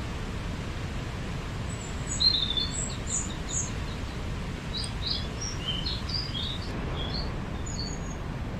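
Small birds chirping in short, high notes from about two seconds in, over a steady low background rumble.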